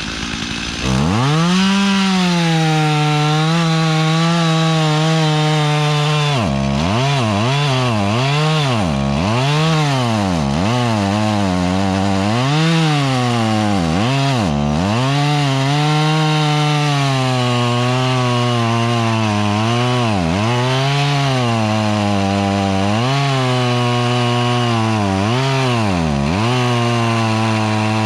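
Chainsaw engine run up to high revs about a second in, cutting wood, its pitch dipping and recovering again and again as the chain bites and the throttle comes and goes.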